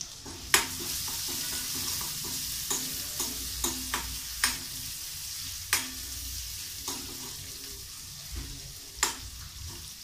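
Chopped shallots and green chillies sizzling in hot oil in a wok, with a spoon stirring them and clinking against the pan every second or so.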